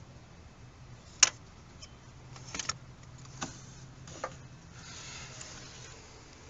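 A sharp click, then a few lighter clicks and a clatter, like small metal parts or tools being handled, over a faint steady low hum, ending with a brief soft rustle.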